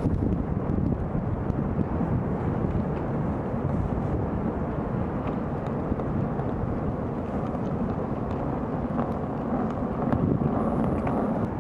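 Outdoor city ambience: a steady rumble of traffic with no distinct events, and a few faint ticks.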